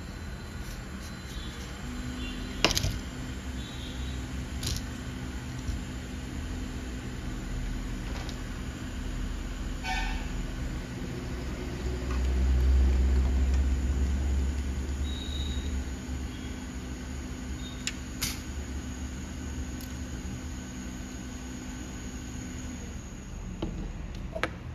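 A hot air rework station's blower runs with a steady hum that starts a couple of seconds in and stops shortly before the end, swelling briefly about halfway through. A few sharp clicks of tools sound on the bench.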